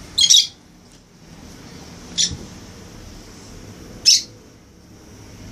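Kept birds calling: three short, loud, shrill calls about two seconds apart, over a faint steady high background.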